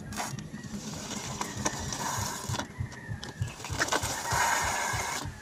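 Old bicycle's rear wheel turning, with irregular clicks and knocks from the wheel and chain.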